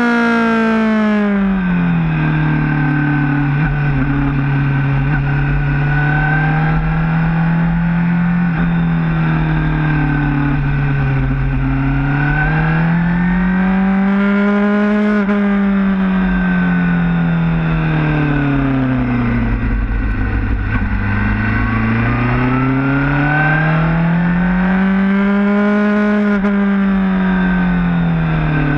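Motorcycle engine heard from on board, its pitch rising under acceleration and falling as the throttle eases off in smooth waves several times, with a low rumble of wind underneath.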